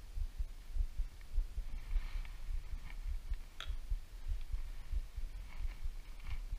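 Faint clicks and light taps of engine parts being handled while the piston is greased and the cylinder readied, over irregular low thumping. The sharpest click comes about three and a half seconds in.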